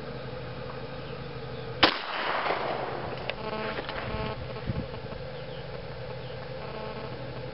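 A single Glock pistol shot about two seconds in, its report echoing off over about a second.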